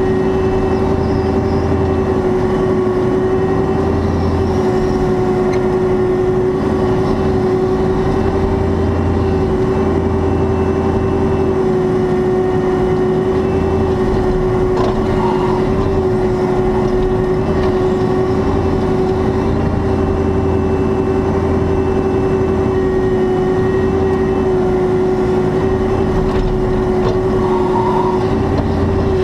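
Caterpillar 305.5E2 mini excavator's diesel engine and hydraulics running under working load as the grading bucket scrapes brush and soil. The sound holds a steady tone, with a low rumble that swells and drops every few seconds as the hydraulics are worked.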